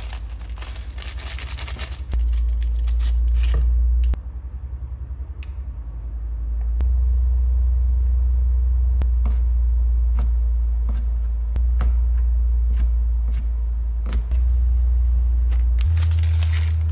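Cooking at the stove: a utensil stirring and scraping in a pan, with scattered sharp clicks, over a loud low hum that steps up and down in level several times.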